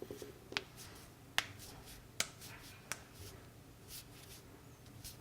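Knuckles cracking: four sharp pops, about one every 0.8 seconds, followed by a couple of fainter clicks.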